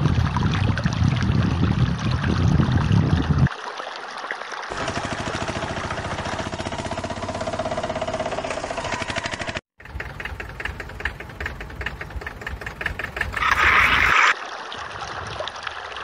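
An engine-like running sound with a fast, even chugging rhythm. It changes abruptly several times, with a brief cut to silence a little before the tenth second and a short higher-pitched burst near the end.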